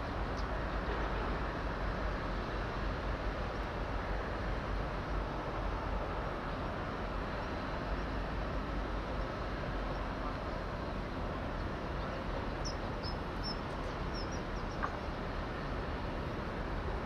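Steady outdoor background noise, an even rushing hiss with no distinct machine rhythm. A few short, high bird chirps come about three-quarters of the way in.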